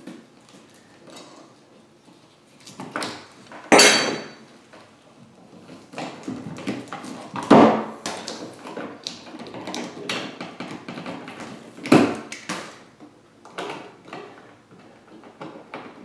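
Wires and hand tools being handled in a plastic electrical wall box: scattered clicks and rustles, with three sharper knocks a few seconds apart.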